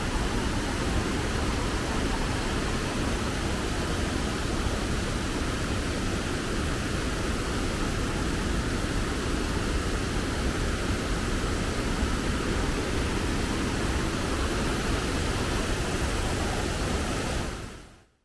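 Waterfall rushing as a steady, even roar of falling water that fades out near the end.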